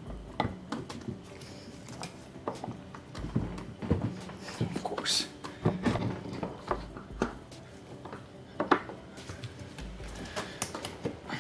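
Scattered clicks, taps and knocks of hands and tools working on metal parts while an alternator is fitted in a Corvette LS3 engine bay, with one sharper knock about three-quarters of the way through.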